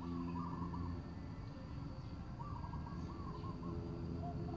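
A bird calling in short warbling phrases, twice, over a low steady hum.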